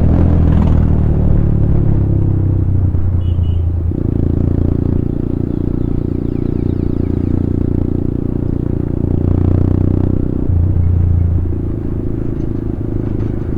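Motorcycle engine and exhaust running under way, a steady note that steps to a new pitch about four seconds in and again twice near the end.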